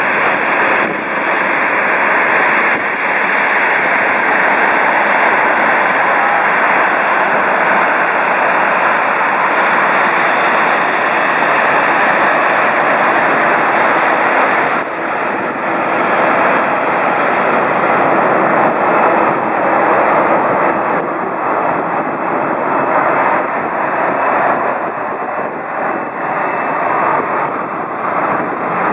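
Boeing 737-800's two CFM56-7B turbofan engines running at taxi power as the jet taxis, a steady, loud jet noise that eases a little in the second half as the aircraft turns away.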